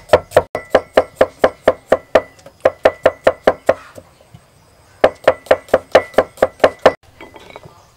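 Steel cleaver chopping garlic cloves on a thick round wooden chopping block: rapid, even knocks of about five a second, in two runs with a pause of about a second between them, stopping about seven seconds in.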